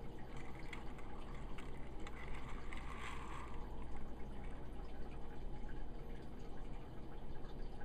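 Faint clicks of a small toy train engine and trucks being set on plastic track, over a steady hiss with a low hum.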